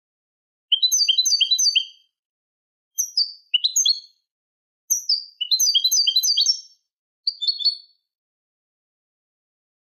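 European goldfinch song in the Málaga style, from a tutor recording for teaching young goldfinches and hybrids: four short phrases of rapid, high twittering notes with clean silent gaps between them.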